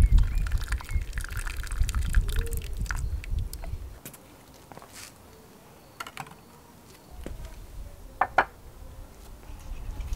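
Hot water poured from a kettle into a baking tray around ceramic ramekins to make a water bath, splashing and trickling for about the first three and a half seconds. Later come a few sharp knocks, the loudest about eight seconds in, as the tray is set down on stone paving.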